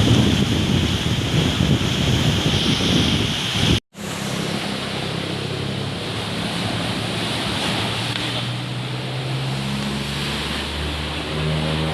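Heavy surf crashing with strong wind buffeting the microphone. About four seconds in it cuts off abruptly, then resumes as a steadier rush of waves with a low steady hum underneath.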